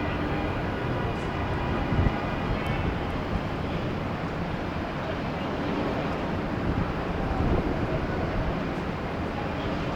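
Airbus A330 airliner's jet engines as it comes in to land, a steady rumble with a faint whine during the first few seconds.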